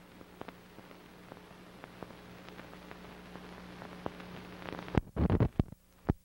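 Hiss and a low steady hum from a blank stretch of old analogue tape, with scattered faint clicks, then a loud burst of crackling pops about five seconds in.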